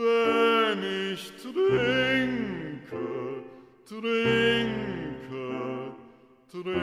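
A low male voice singing slow, held notes with vibrato, in phrases that each start strongly, slide down in pitch and fade.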